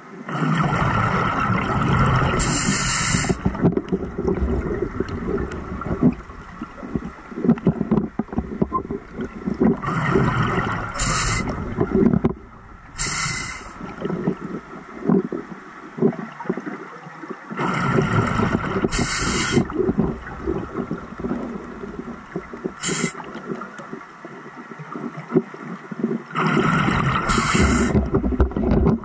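Scuba diver breathing through a regulator underwater, each breath bringing a burst of bubbling exhaust bubbles and a short hiss. There are four breaths, one about every eight seconds, with quieter pauses between.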